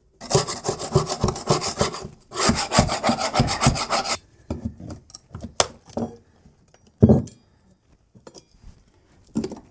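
Hand floor scraper scraping rapidly back and forth across a plywood subfloor to lift stuck carpet padding, in two bouts of about two seconds each. After that come a few scattered clicks and a short knock as a flat pry bar works at the carpet tack strip.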